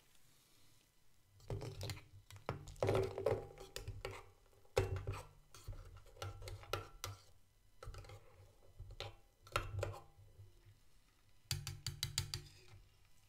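A metal spoon stirring thick vanilla pudding in a small metal cup, clinking and scraping against the sides and rim in several bursts of taps with short metallic ringing.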